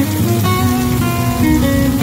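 Background music: a run of plucked acoustic guitar notes.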